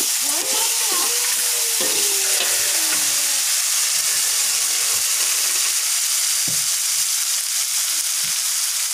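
Ground chili, shallot and garlic spice paste frying in hot oil in a wok, a steady sizzle, stirred with a metal spatula that knocks against the pan now and then.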